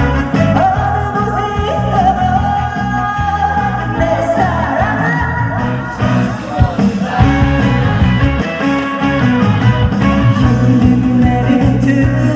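Woman singing a trot song live through a PA, over loud amplified band accompaniment with a steady bass beat; she holds long, bending notes.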